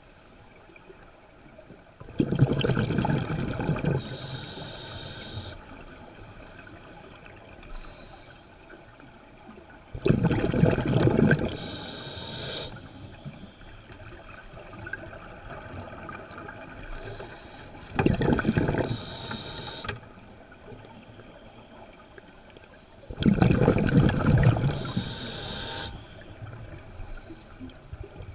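Scuba diver breathing through a regulator underwater, four breaths: each a rumbling, gurgling rush of exhaled bubbles followed by the short high hiss of the regulator on the inhale.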